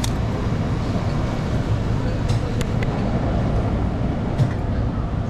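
Steady low rumble of shop background noise with faint voices, broken by a few short, light clicks about two and a half seconds in and again near the end.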